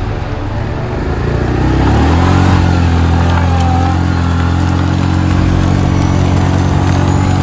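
An engine revs up over about two seconds, then runs steadily at a constant speed.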